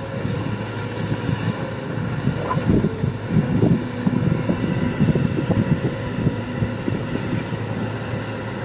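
Sany excavator's diesel engine running steadily under work. From about two and a half seconds in, irregular clattering knocks sound over the engine hum.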